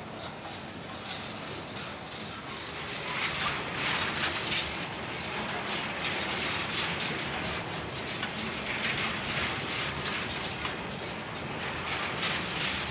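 Empty coal hopper wagons of a long freight train rolling past, their wheels clicking and rattling on the rails. It gets louder from about three seconds in.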